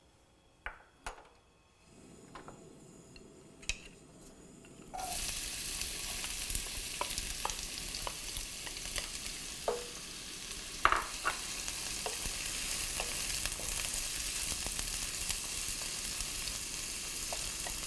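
Diced red onion going into hot oil in a nonstick pan: a few light clicks, then about five seconds in a sudden loud sizzle that carries on steadily as the onion fries. A wooden spatula stirs through it with scattered taps and scrapes against the pan.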